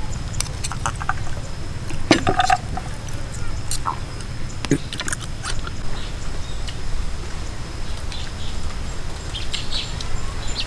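Cutlery clinking against a plate as roast chicken is served, then hands pulling the chicken apart: a scattered run of short clicks over a steady low rumble and a thin steady high tone.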